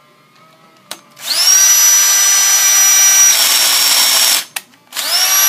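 Electric drill spinning up to a high, steady whine, its pitch stepping down slightly partway through, then stopping; it spins up again near the end.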